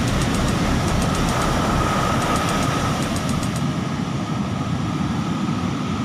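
Ocean surf breaking and washing up a sandy beach: a steady, noisy rush with a deep rumble.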